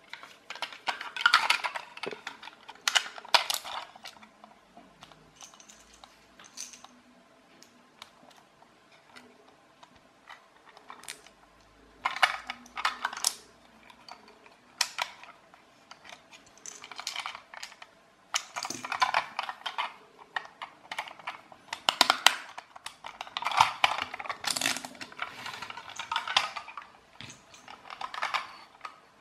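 Small plastic clockwork toy car being handled and screwed back together: bursts of light plastic clicking and rattling, each a second or two long, coming in about eight bunches with quiet gaps between.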